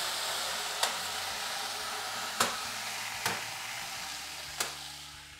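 Water poured from a kettle onto a preheated tray of stones at the bottom of a hot oven, hissing and sizzling as it flashes to steam for the bake. The hiss slowly fades, broken by four sharp pops.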